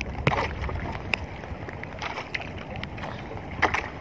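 Wind on the microphone and choppy water slapping around a small boat, with a few sharp clicks and knocks from handling: one about a third of a second in and a louder pair near the end.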